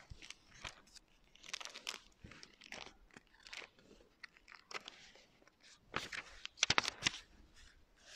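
Paper rustling and crinkling as the pages of a service book are handled and turned, in irregular crackles with a louder burst near the end.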